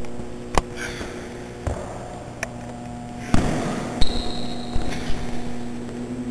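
A steady low hum under a series of sharp knocks, with the loudest knock about three seconds in and a thin high tone for about a second just after.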